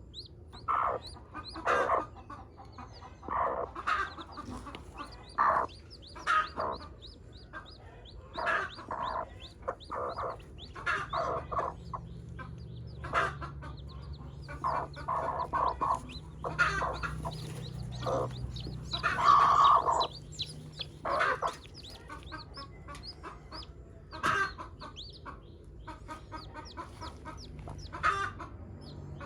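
Broody hen clucking in short calls every second or two, one louder and longer about two-thirds of the way through, with newly hatched chicks peeping in quick, high, falling notes throughout.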